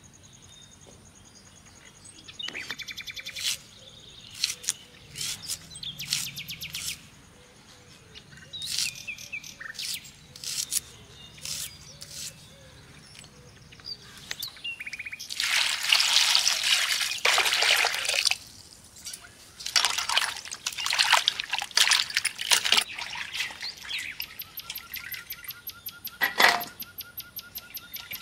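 Small birds chirping and trilling on and off, with a rapid repeated trill near the end. Around the middle come louder bursts of rustling noise from hands working vegetables.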